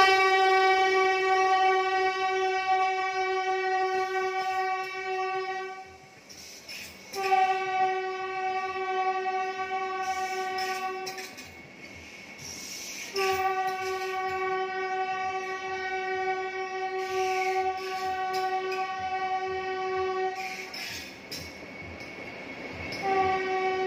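Vande Bharat Express train sounding its horn in three long single-pitched blasts, about six, four and seven seconds long, with short gaps between. A fourth blast starts near the end, with the rumble of the train between blasts.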